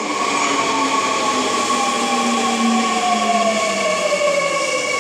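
Seoul Subway Line 2 electric train rolling in and slowing, with steady rolling noise. A motor whine falls smoothly in pitch as the train brakes, over steady high tones.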